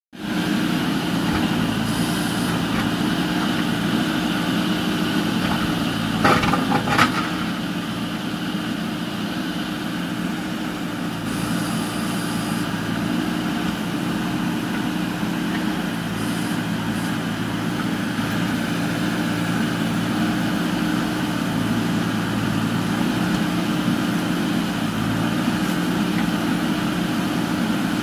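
JCB 3DX backhoe loader's diesel engine running steadily while the backhoe arm digs soil, with two sharp knocks about six and seven seconds in.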